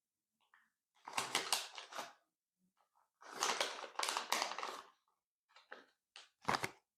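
Clear slime being squeezed and folded by hand, giving off bursts of dense crackling, clicking pops: two long bursts, then a few short ones near the end.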